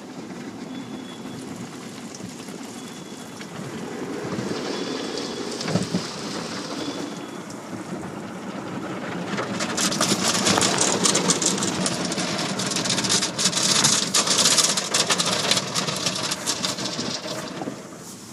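Automatic car-wash water spraying and pattering on the car's body and windows, heard from inside the cabin. It grows louder about ten seconds in as heavier spray hits. Faint short beeps repeat about every two seconds in the first half.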